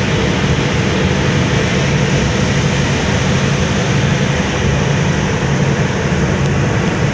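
Ship's engine running with a steady drone, under a loud rushing of water churned up past the hull.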